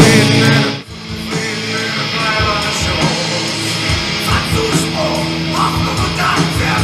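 Live demo recording of blackened horror punk playing back from a cassette tape, guitar-driven band music. It drops suddenly in level about a second in and carries on lower as background.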